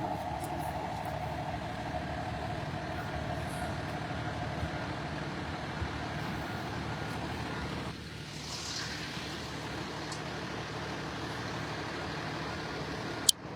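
A large truck's engine running steadily, a continuous drone that eases a little about eight seconds in. A single sharp click comes near the end.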